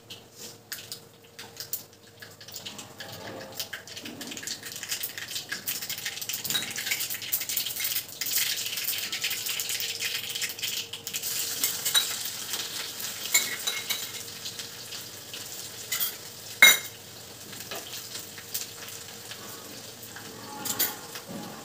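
Hot oil sizzling and crackling in a small tempering pan with mustard seeds, cumin and crushed garlic. The sizzle swells a couple of seconds in and eases toward the end. A steel spoon clinks against the pan and bowl a few times, loudest a little past halfway.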